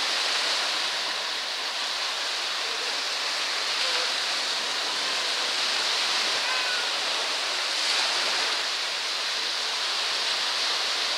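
Steady rush of small freshwater lake waves breaking along the shore and washing through the shallows.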